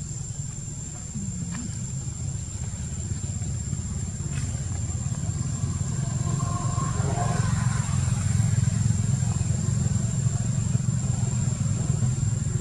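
Low hum of a motor vehicle engine, most likely a motorbike, running nearby and growing steadily louder, with a steady high-pitched whine above it.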